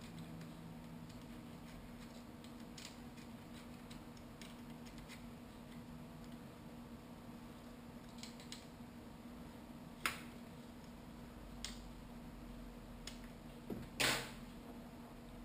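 Scattered faint clicks over a steady low hum, with a sharp click about ten seconds in and a louder, slightly longer knock near the end.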